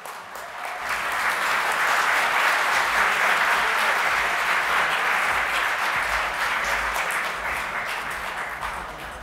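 Audience applauding. The clapping swells over about the first two seconds and tapers off near the end.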